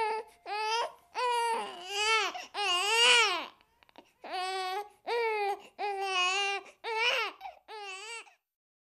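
A newborn baby crying: about ten short wails in a row that stop just before the end.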